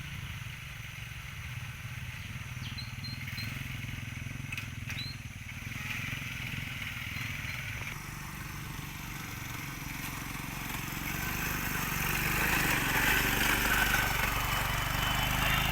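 Honda XRM125 motorcycle engine running steadily, getting louder over the last few seconds.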